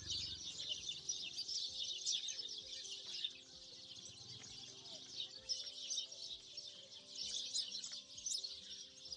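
Many small birds chirping and twittering in a dense, continuous chorus, with soft background music underneath.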